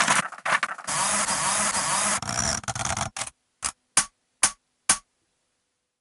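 Sampled manual typewriter sounds played from a Korg Volca Sample: about three seconds of dense mechanical clatter with a scraping stretch, then four single keystroke clacks just under half a second apart.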